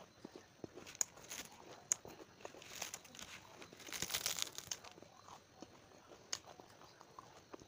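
Close-miked crunching of a crisp, crumbly snack being chewed and picked up by hand, with sharp crunches about a second and two seconds in and a denser run of crackling around the middle.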